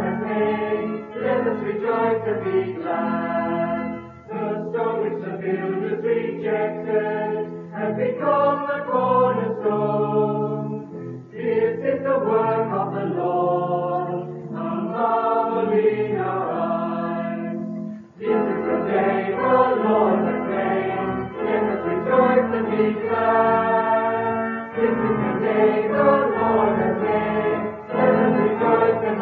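Choir singing a psalm setting with organ accompaniment under it, in long phrases with brief breaks between them.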